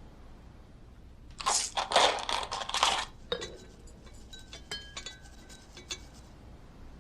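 A loud crunching rattle lasting about a second and a half, then a run of small, light clinks and taps of hard objects, some with a brief ringing.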